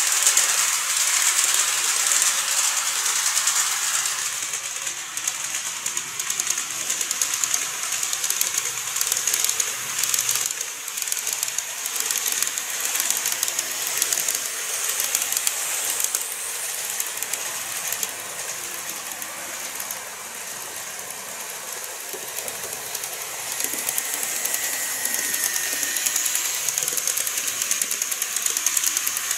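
KATO N-gauge model trains (a 415 series electric multiple unit, then the Seven Stars in Kyushu set) running along the track and over a truss bridge: a steady high hiss of wheels and motors with fine irregular clicking from the rail joints.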